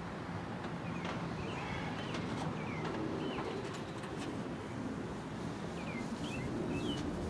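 Birds chirping in short, hooked calls every second or so, over a steady low background hum.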